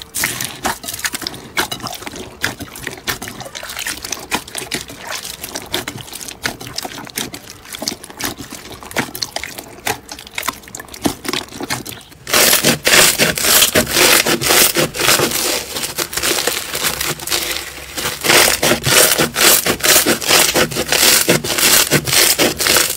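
Hands squeezing, poking and kneading slime packed with foam beads, making dense crackling and squishy popping. About twelve seconds in the crackling becomes louder and denser.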